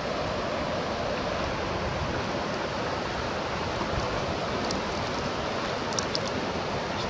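Steady rushing of water at the shoreline, with a few light clicks about six seconds in.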